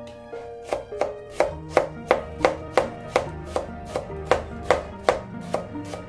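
Chef's knife chopping red cabbage into shreds on a plastic cutting board: a steady run of knocks about three a second, starting about half a second in, over soft background music.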